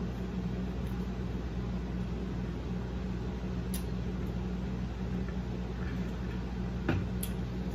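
A person drinking from an insulated metal water bottle over a steady low hum, with a few light clicks and one sharper click about seven seconds in.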